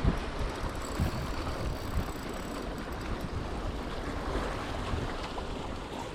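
Wind buffeting the microphone, with the wash of sea waves underneath.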